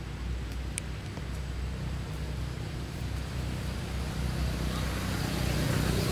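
A low, steady engine rumble that grows louder near the end, with one faint click about a second in.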